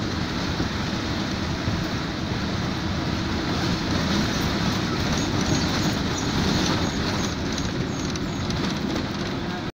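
Steady running noise of a moving bus heard from a seat at an open window: engine drone and low road rumble with rattle and wind noise, no change through the stretch.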